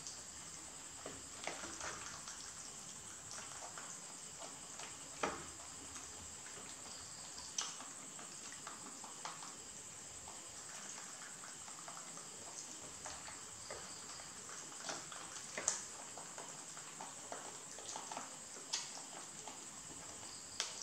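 Rabbits chewing soft soursop fruit: an irregular run of small wet clicks and crunches, with a few sharper clicks standing out, over a steady high hiss.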